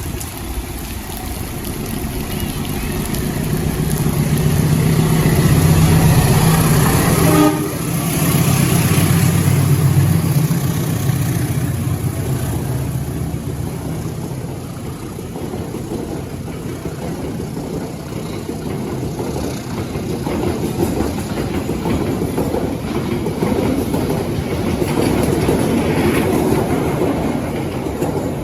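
A diesel locomotive passes close by with its engine drone loudest in the first half, followed by its train of carriages rolling past with steady wheel and rail noise.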